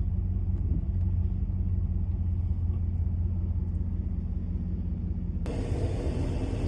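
Steady low rumble of a pickup truck driving slowly, heard inside the cab. About five and a half seconds in, a broad hiss suddenly comes in on top of it.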